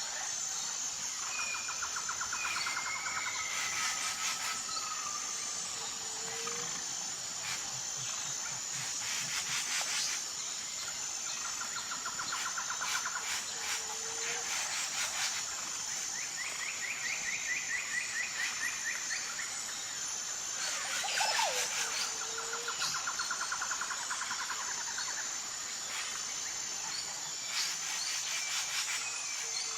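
Tropical forest ambience: a steady, high, pulsing insect chorus, with birds giving rapid trills again and again, and a short low call repeating about every seven to eight seconds.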